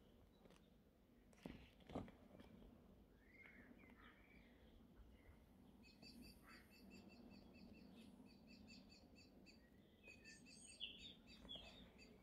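Near silence with faint birdsong: small birds chirping, with a rapid repeated trill in the middle. Two soft clicks about one and a half and two seconds in.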